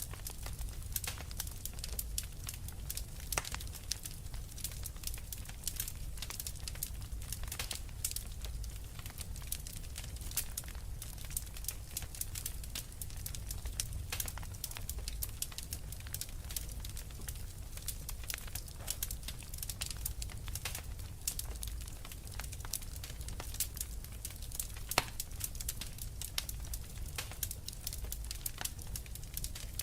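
Wood fire burning in a fireplace: a steady low rumble of flame under dense, irregular crackling and small pops, with one sharper pop about 25 seconds in.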